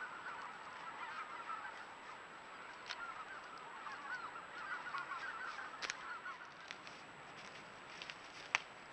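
A large flock of geese honking, many short calls overlapping into a dense babble that fades out after about six and a half seconds. A few sharp clicks cut through, the loudest near the end.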